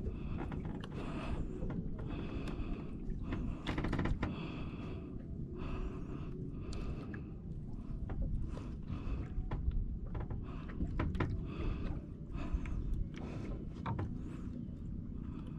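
Jigging reel being cranked hard against a hooked fish, in short rhythmic pulses about one and a half times a second with sharp clicks, over a steady low rumble.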